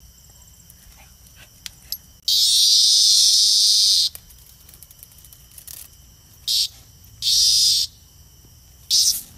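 An insect buzzing loudly in high-pitched bursts: one long buzz of nearly two seconds, then three shorter ones near the end, each starting and stopping abruptly.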